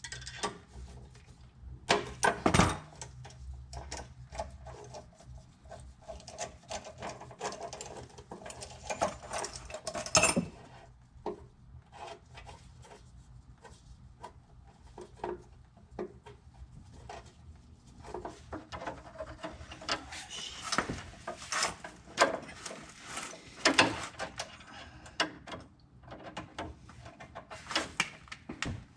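Hand tools being worked: irregular clicks, knocks and scraping, with louder knocks about two seconds in, around ten seconds, and again between about twenty and twenty-four seconds.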